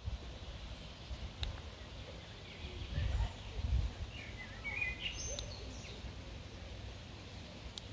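Outdoor park ambience: a steady background hush with low rumbles near the middle and a few short bird chirps about five seconds in.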